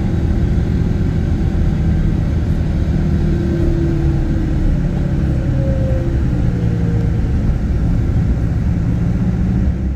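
Road vehicle running on the move: a steady low engine and road rumble, dropping away abruptly right at the end.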